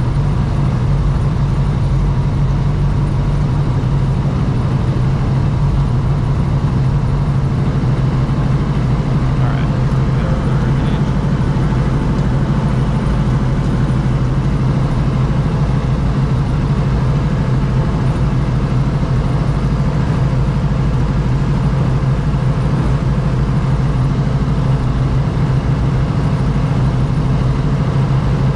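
Schweizer 269C-1 helicopter's four-cylinder Lycoming piston engine running steadily just after start-up, a constant low drone.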